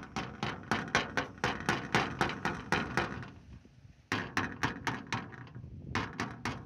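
Flat metal chisel scraping and chipping rust and old paint off a rusty metal relief panel in quick short strokes, about five a second. The strokes pause for about a second just after the middle, then resume.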